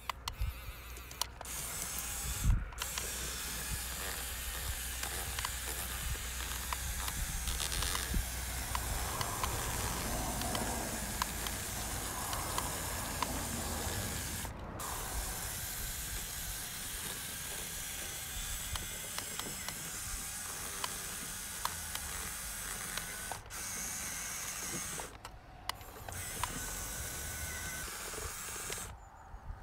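Small RC crawler's electric motor and gearbox whirring as it drives through wet mud and shallow water, with tyres splashing and squelching and many small clicks.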